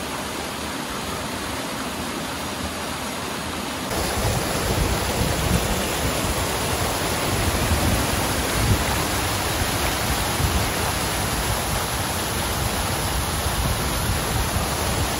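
Waterfall cascading down a narrow rock gully: a steady rush of falling water that gets louder and deeper about four seconds in.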